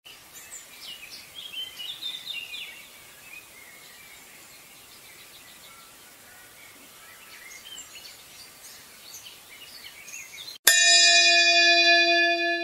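Birds chirping faintly, then about eleven seconds in a large brass temple bell is struck once and rings on with several steady tones.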